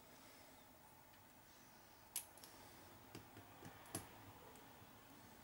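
Quiet room with a few small, sharp clicks of small RC car parts and tools being handled on a workbench: a screw and washer being fitted to a steering link, with the clearest clicks about two and four seconds in.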